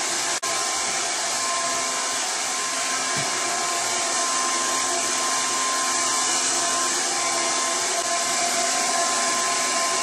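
Red by Kiss double layer pik hair dryer running steadily on its cold setting: an even rush of air with a steady motor tone, with one momentary dip about half a second in.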